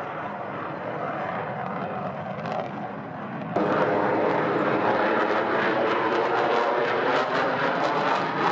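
Lockheed Martin F-35A Lightning II's single Pratt & Whitney F135 jet engine running in flight, a steady jet noise that about three and a half seconds in turns abruptly louder and harsher, with a rapid crackle.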